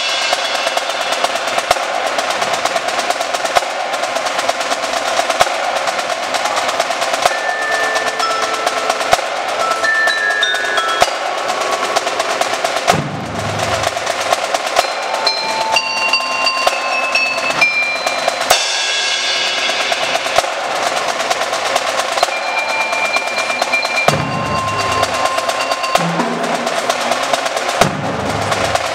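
Indoor marching drumline playing: snare and tenor drums in fast, dense patterns, with a few ringing mallet-keyboard notes and low marching bass drum hits about halfway through and again near the end.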